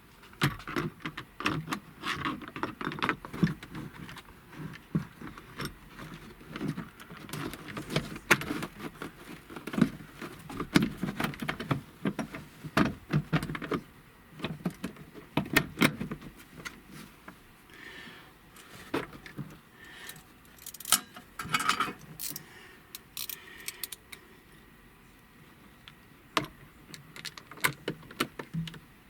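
Plastic interior trim parts being handled and fitted back into a pickup's cab: many irregular clicks, knocks and rattles, thinning out for a few seconds near the end.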